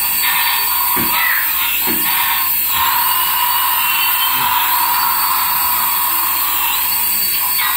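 Battery-operated toy's electronic sound effects from a small built-in speaker, running steadily with repeating rising-and-falling sweeps.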